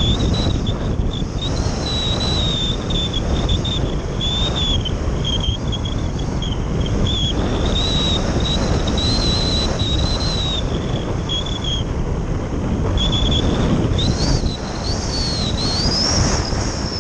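Wind buffeting the onboard camera of a model glider in flight, a dense rushing rumble. Over it a thin high airflow whistle wavers in pitch, drops out and returns, and climbs sharply near the end.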